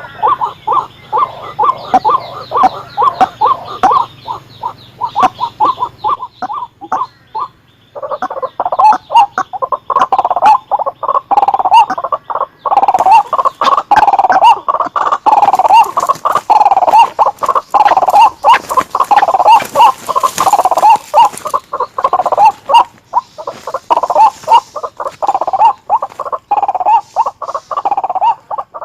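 White-breasted waterhen calling: loud, harsh calls repeated in rapid succession. They break off briefly about eight seconds in, then resume louder.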